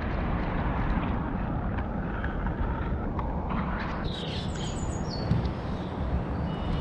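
Steady rushing noise of shallow river water around the camera, with a few short high bird chirps about four to five seconds in.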